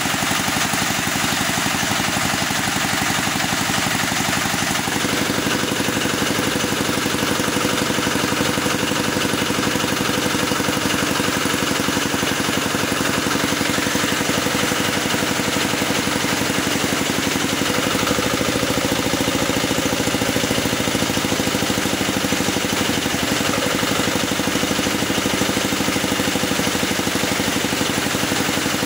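Small diesel engine running steadily. Its note shifts about five seconds in and again around eighteen seconds.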